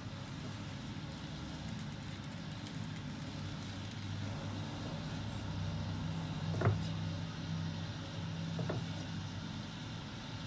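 Kitchen knife slicing a block of konjac on a wooden cutting board, the blade knocking against the board twice, about two seconds apart, the first knock the louder. A steady low hum runs underneath.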